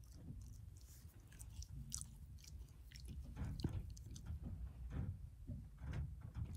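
A Shiba Inu chewing cotton stuffing torn from a plush toy, its jaws making soft, irregular clicks and smacks.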